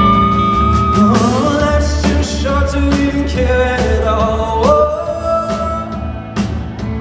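Live rock band playing, with drums and a held melody line that slides between notes, sung or played over the band.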